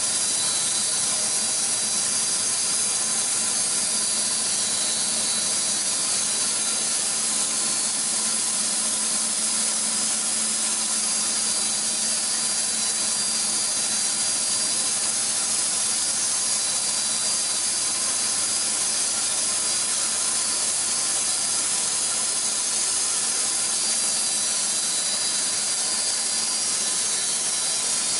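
AMIX PT-100 horizontal band sawmill running: its electric drive motor and spinning band blade give a steady high hiss, with a faint low hum that fades about halfway through, as the saw head feeds along its track.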